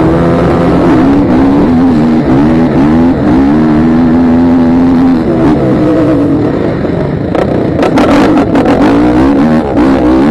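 Motocross dirt bike engine at race speed, its pitch rising and falling again and again as the throttle is worked and gears change, heard close up from the rider's helmet. A cluster of sharp knocks comes through about eight seconds in.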